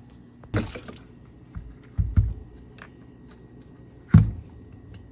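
Hands working on a dishwasher's wash motor and its piping: a few separate knocks and clunks of parts being handled, with a pair of low thumps around the middle and the loudest clunk near the end.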